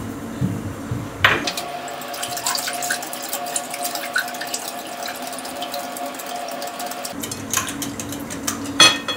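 Wire whisk beating a thin liquid batter in a glass bowl: quick clinks of the tines against the glass with sloshing liquid. There is a sharper knock near the end.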